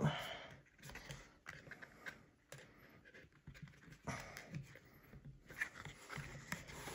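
Stiff cardboard game pieces handled and pushed together by hand: light scraping and scattered soft clicks as slotted inserts are forced into a tight slot that won't seat.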